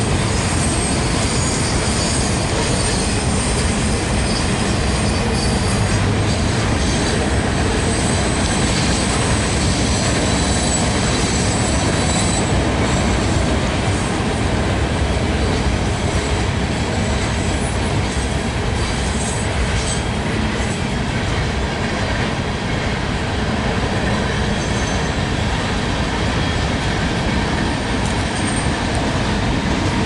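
Union Pacific manifest freight train rolling past, a steady noise of its wheels on the rails. A thin, high wheel squeal rings through roughly the first half and then fades out.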